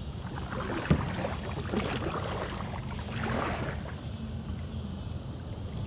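Kayak paddle splashing through the water in unhurried strokes, with water dripping and lapping at the hull and a light knock about a second in.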